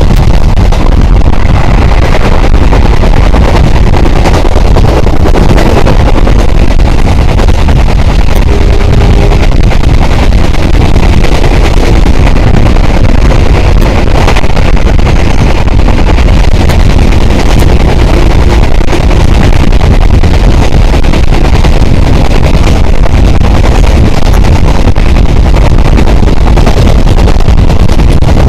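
Passenger train running at speed, recorded from outside the carriage window: a loud steady rush of wind on the microphone over the rumble of the wheels on the rails.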